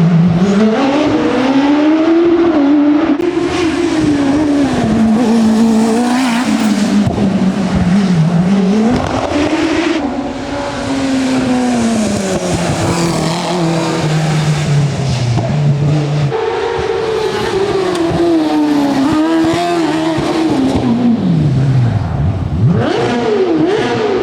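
A race car's engine under hard acceleration on a hillclimb, revving up through the gears: the note climbs, drops sharply at each change and climbs again, then falls away and picks up once more near the end.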